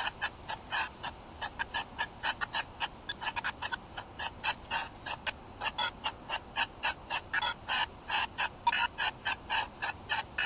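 SpiritVox spirit-box app sweeping: a rapid, choppy string of short clipped blips of noise and sound fragments, about five or six a second, used in ghost-hunting sessions as a noise for spirit voices.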